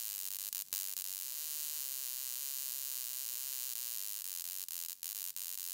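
High-voltage arc jumping across a circuit-board spark gap, driven by a small 3 V to 3000 V step-up module, making a steady hissing buzz. It cuts out briefly about a second in and twice more near the end.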